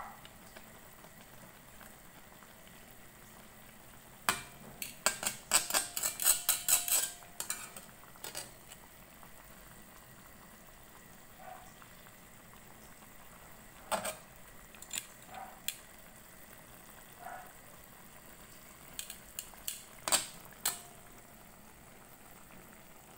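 Chicken adobo simmering in a nonstick wok, with a faint steady bubbling hiss. A utensil stirs, scrapes and knocks against the pan in a quick run of clatters about four seconds in, then in a few scattered knocks later.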